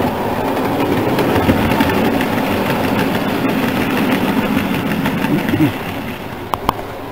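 Model railway goods train of vans running past close to the track, its wheels giving a steady rumble on the rails that drops off about six seconds in, followed by two sharp clicks.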